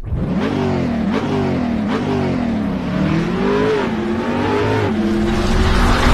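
Car engine revved up and down several times, its pitch rising and falling in quick blips.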